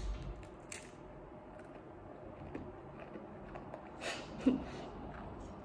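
Quiet chewing of a hard dog biscuit, with a sharp crunch less than a second in and a few fainter crunches around four seconds. About four and a half seconds in comes a short closed-mouth "mm".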